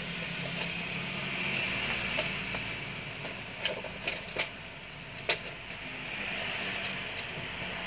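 Steady background hum and hiss, with a few short sharp clicks or taps a little past halfway, the loudest near the end of them.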